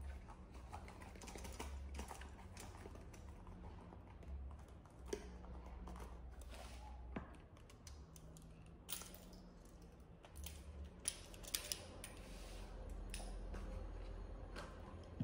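Faint rustling and light tapping of stacked printed paper modules being handled and sorted on a table, with a few sharper clicks scattered through, over a low hum.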